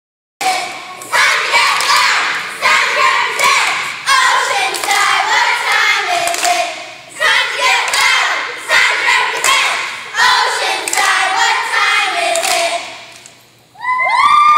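A group of young girls shouting a cheer in unison, punctuated by sharp rhythmic claps and stomps. The chant dies away about 13 seconds in, and a single voice starts calling just before the end.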